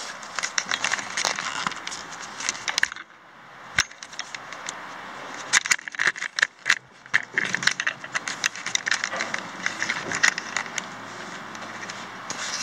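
Irregular clicks, knocks, rattling and scuffing of someone handling gear and climbing onto a steel freight hopper car, with a brief lull about three seconds in broken by one sharp click.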